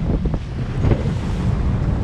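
Heavy wind rumble buffeting the microphone on a boat at sea, with waves washing around the hull.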